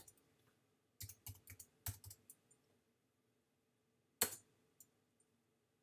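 Computer keyboard typing: a quick run of about six keystrokes about a second in, typing out 'cmake', then after a pause a single harder keystroke, the Return key entering the command.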